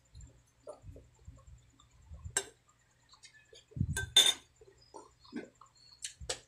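A metal spoon clinks against a small glass bowl of dark sauce several times, loudest about four seconds in. Soft eating and chewing noises come in between.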